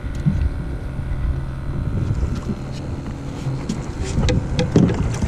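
Boat engine running steadily, with wind buffeting the microphone. Scattered sharp clicks come in over the second half.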